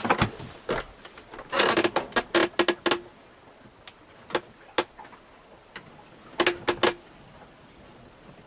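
Sharp clicks and knocks in three quick clusters, near the start, around two seconds in and about six and a half seconds in, with only faint background between them.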